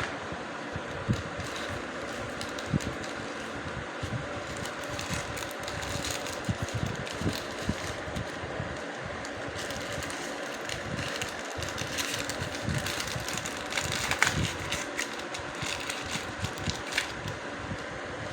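Many small clicks and taps, as of hands and tools working on a laptop's internals during an SSD swap, over a steady fan-like hum.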